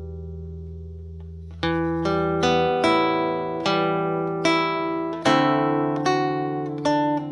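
Solo acoustic guitar played fingerstyle: a held chord rings and fades, then about a second and a half in, single plucked notes of the melody start again over bass notes.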